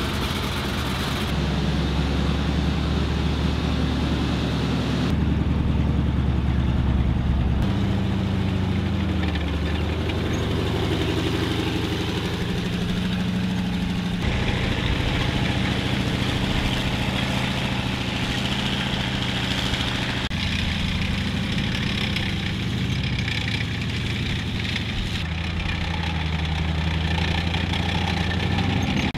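Stuart M3A1 light tank's seven-cylinder radial engine running as the tank is driven, the engine note rising and falling with the throttle. The sound changes abruptly several times where short clips are joined.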